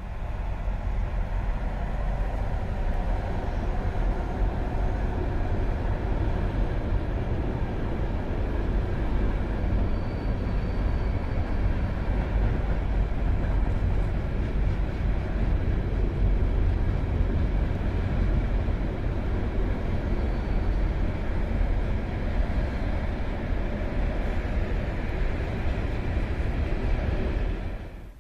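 Freight train rolling past at close range: a steady, loud rumble of wheels on rails, heaviest in the low bass, that stops abruptly near the end.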